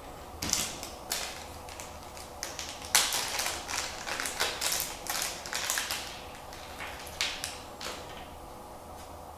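A small clear plastic parts bag crinkling as it is handled, with small clicks and taps from small kit parts, in irregular short bursts that are busiest from about three to six seconds in.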